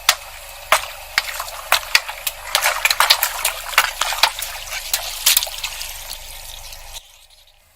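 Wet crackling and squishing with many small sharp pops over a steady hiss, stopping abruptly about seven seconds in.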